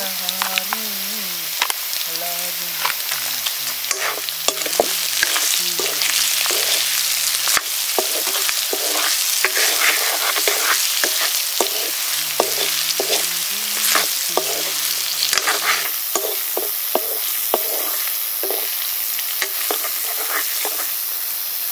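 Buffalo meat curry frying and sizzling in a pan, stirred with a utensil that scrapes and clicks against the pan many times.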